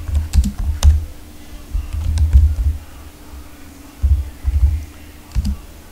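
Typing on a computer keyboard: bursts of key clicks with dull thumps from the keystrokes, broken by short pauses.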